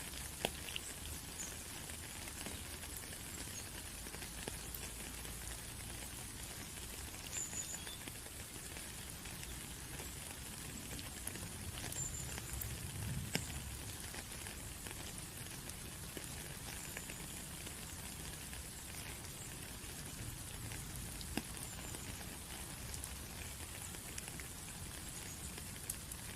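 Rain falling steadily, with scattered single drops ticking and dripping.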